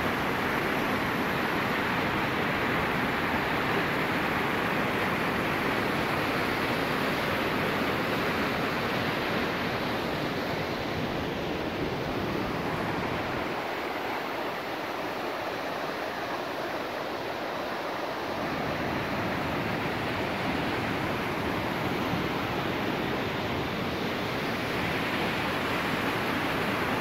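Mountain river rushing over rocks, a small waterfall pouring into a pool: a steady rush of water. For a few seconds around the middle the deep part of the rush thins out.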